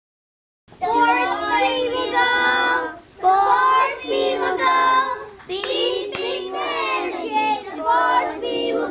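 A group of young children singing a song together in phrases of two to three seconds with short breaks, starting suddenly after about a second of silence.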